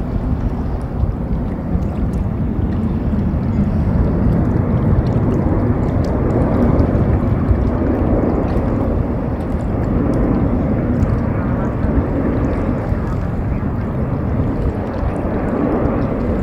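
Distant jet airliner engine roar, a steady low rumble that swells slightly midway.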